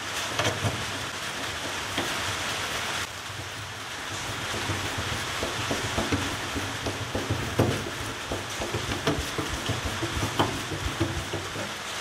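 Heavy storm rain heard from inside a workshop, a steady hiss. Over it come scattered small clicks and taps from a hand tool snugging down the trunk-lid striker's Phillips screws, more frequent in the second half.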